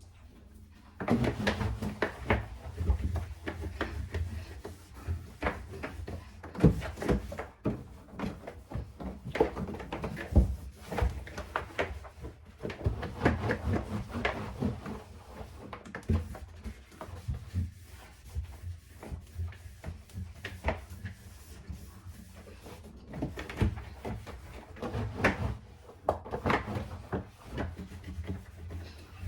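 Irregular knocks, clatter and scrapes of fridge drawers, shelves and containers being handled, starting about a second in.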